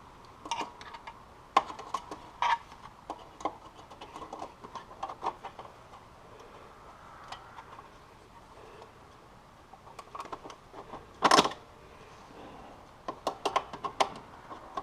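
Scattered light metallic clicks and clinks of hand tools and parts being handled while a snowmobile's exhaust is taken apart, with one louder clank about eleven seconds in and a quick run of clicks near the end.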